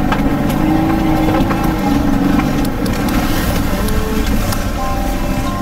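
Four-wheel drive running over a rough dirt track, heard from inside the cabin: a steady engine and road noise with scattered knocks and rattles.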